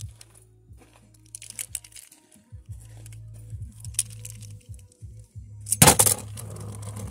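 Plastic Beyblade Burst tops and parts handled with light clicks and clacks, then about six seconds in two tops set spinning in a plastic stadium, clattering and rattling loudly as they clash.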